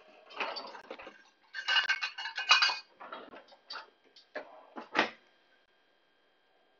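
Metal pots and pans clattering as they are rummaged through and moved. A dense burst of clanking about two seconds in is the loudest part, followed by a few separate sharp clanks, the last about five seconds in.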